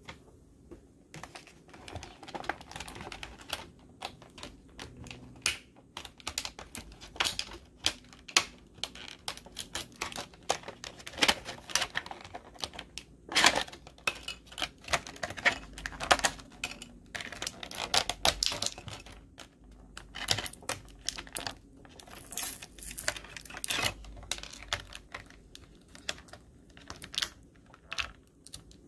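Clear plastic blister packaging and bag crinkling and clicking as hands handle them and pull out the pieces: a quick, irregular run of sharp crackles and taps.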